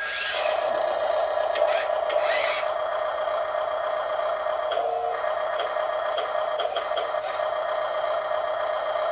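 Small electric drive motors and gears of a 1/14-scale Double E E594 remote-control skid steer running with a steady whir, with a few short scraping noises in the first few seconds.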